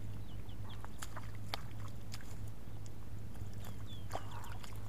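Short splashes and sloshes of bare feet and hands in shallow muddy water, over a steady low hum. Small birds chirp briefly, a few short falling notes about half a second in and again near four seconds.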